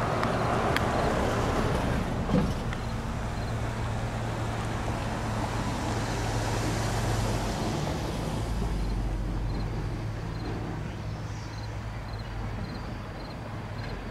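Road traffic: cars passing on the street, with tyre and engine noise swelling as they go by and a steady low hum underneath. A single short knock sounds about two seconds in.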